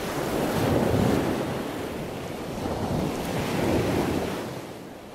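Wind buffeting the microphone: a rushing rumble that swells twice and eases off.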